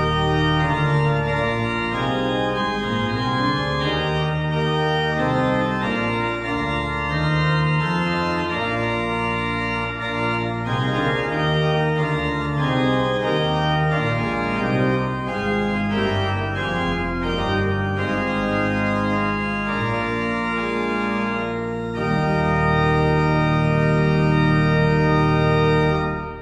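Organ music: sustained chords moving through a slow piece, closing on a louder long-held final chord near the end.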